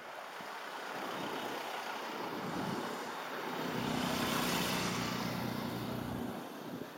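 A small motorcycle passes close by, its engine hum and tyre noise swelling to a peak about four seconds in and then fading, over steady road and wind noise.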